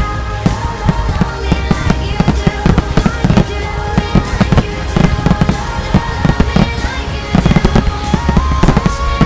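Rapid, dense firework detonations from a fireworks finale, many sharp bangs a second, with the show's pop song soundtrack playing underneath.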